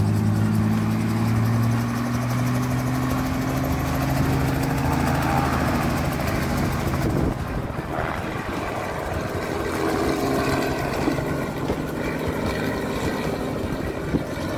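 Helicopter engine and rotor running, their pitch climbing slowly over the first few seconds. About seven seconds in the sound changes to a rougher, noisier running.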